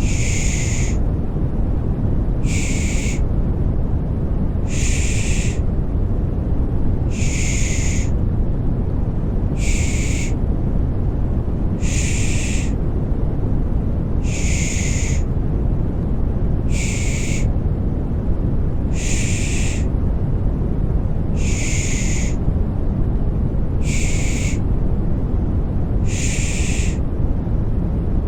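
Rhythmic 'shh' shushing ('pış pış'), a short hiss about every two and a half seconds, over a steady deep-toned white noise. This is the shushing used to calm a baby to sleep.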